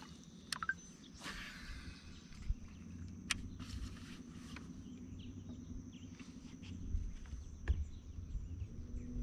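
Quiet open-air ambience on a fishing boat: a faint low hum and a faint steady high whine, broken by a few light clicks and taps as the angler handles the rod and reel.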